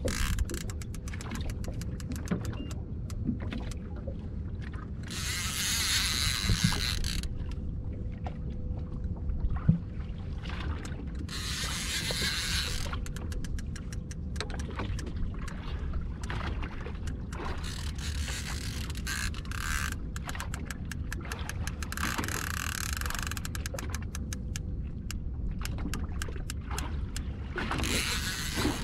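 Fishing reel ticking in quick runs of clicks while a hooked kingfish is fought, over a steady low rumble, with a few rushes of hiss lasting a second or two.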